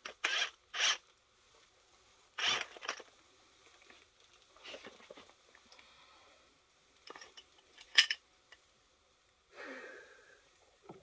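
A cat nosing around close to the microphone: a series of short sniffs and rustles, with one sharp click about eight seconds in.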